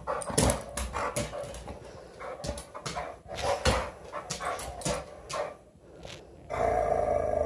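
Dog with a rubber ball in its mouth: scattered clicks and taps as it moves about, then a steady growl about a second and a half long near the end, guarding the ball it wants thrown but won't give up.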